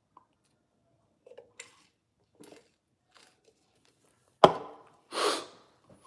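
A man drinking from a bottle: faint handling and sipping sounds, a sharp knock about four and a half seconds in, then a short breathy exhale.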